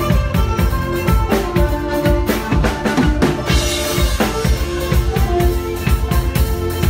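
A band playing, with a drum kit keeping a steady beat of bass drum and snare under sustained melodic notes.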